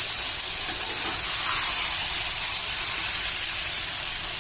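Tangra fish and masala sizzling steadily in a kadai on the flame while a spatula stirs them gently through; an even frying hiss.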